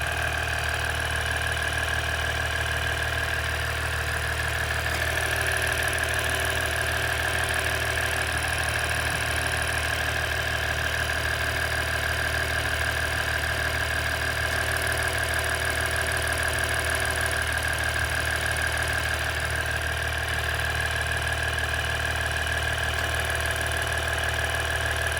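2017 Ram EcoDiesel 3.0-litre V6 diesel engine idling steadily with a fast, continuous clicking: the clicking noise the owner is documenting.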